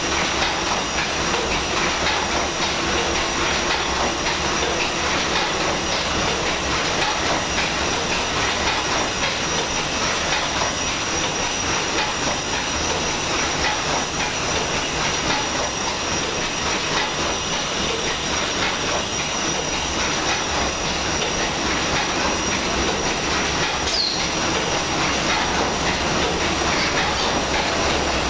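Paddle steamer's steam engine running: a steady mechanical clatter with hiss from the working machinery.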